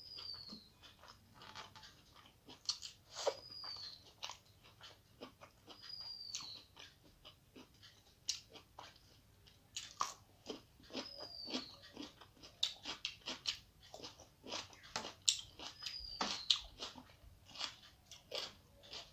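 Close-up chewing and crunching of rice with crisp fried bitter gourd, eaten by hand, full of small irregular clicks. A short high falling chirp repeats every few seconds behind it.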